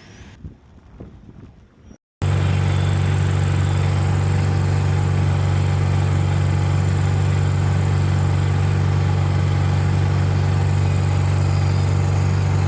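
Faint handling noises, then after a cut, an RV inverter generator engine running steadily with a loud, even hum, its clogged carburetor now cleaned and reinstalled.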